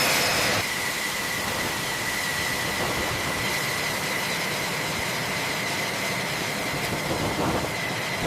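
Jet engine running steadily on the ground: an even roar with a steady high whine, a little louder for the first half second before settling.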